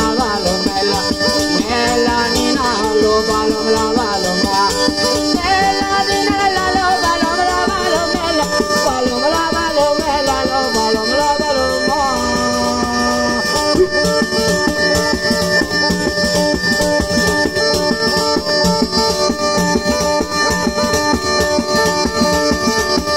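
A three-palm zampogna (southern Italian bagpipe) plays a folk dance tune over its steady drones, with a shaken hand percussion keeping the beat. A man sings along until about halfway through, after which the bagpipe and percussion carry on alone.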